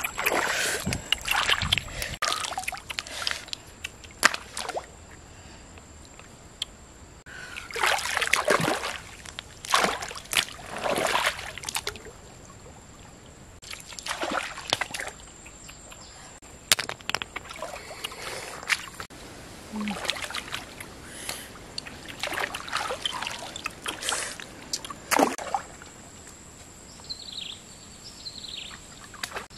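Hands splashing and sloshing in shallow stream water, in irregular bursts with quieter gaps between.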